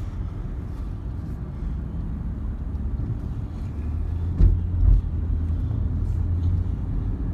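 Steady low road and engine rumble inside a car's cabin as it creeps along in traffic, with two loud thumps close together about four and a half seconds in.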